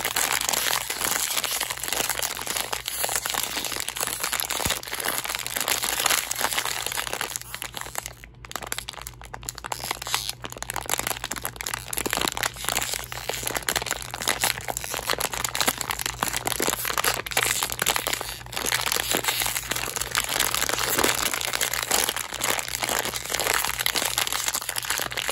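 Fingers crinkling and squeezing a sealed plastic blind-box bag, a continuous dense crackle of rustling plastic film with a brief lull about eight seconds in.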